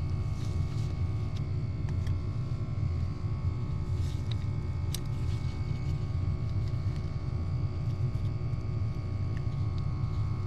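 A steady low rumble of background noise, with a few faint light clicks of metal clutch plates and a screwdriver against the clutch basket in the first five seconds.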